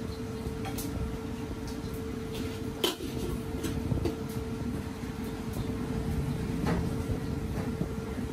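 Steady low rumble of a busy stall kitchen with a constant hum, broken by a few sharp clicks and clinks of utensils, the loudest about three seconds in.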